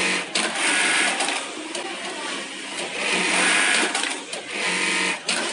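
Rixiong E-series computerized bartack sewing machine stitching bartacks into denim. There are two short bursts of rapid stitching, each about a second long, with a quieter pause between them and a sharp click near the end.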